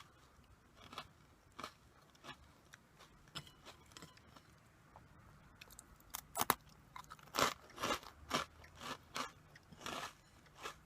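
Close-up chewing of crunchy corn puff snacks (Meiji Karl, mentaiko-butter flavour): sharp crunches, a few scattered at first, then a quick run of loud crunches from about the middle to near the end.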